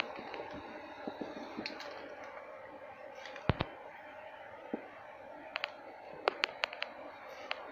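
Scattered sharp clicks and crackles of dry palm fronds and wood being handled beside a wild honeybee comb in a hollow log, with a cluster of them near the end, over a steady faint hum.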